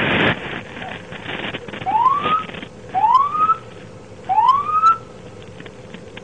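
A short loud burst of noise at the start, then an electronic police siren giving three short rising whoops about a second apart, each sweep climbing and levelling off.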